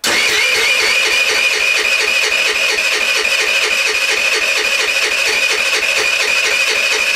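A 50 cc 139QMB four-stroke scooter engine being cranked over continuously with a compression gauge in the spark-plug hole, so it turns in a fast even pulsing rhythm without firing. This is a compression test: the gauge gets no higher than about 8, which is low for an engine already suspected of worn piston rings.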